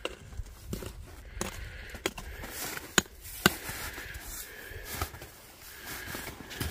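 Loose, broken rock crunching and clinking as a rock hammer picks at the talus and outcrop face, with scattered sharp clinks, the two loudest close together about three seconds in.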